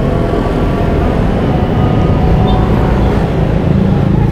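Road traffic passing close by: a steady, loud rumble of vehicle engines and tyres.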